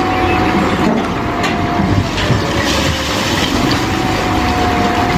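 Wheel loader's diesel engine running under load with a steady whine, over a continuous rush of rubble pouring out of its raised bucket.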